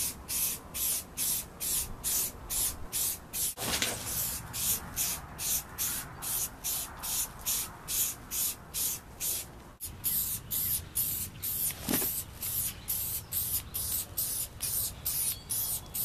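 Aerosol spray can of rust-inhibiting primer hissing in short, evenly repeated squirts, about three a second.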